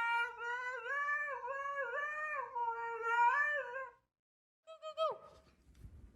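A dog howling in one long, wavering tone that rises and falls, stopping abruptly about four seconds in; about a second later comes a short cry that falls in pitch.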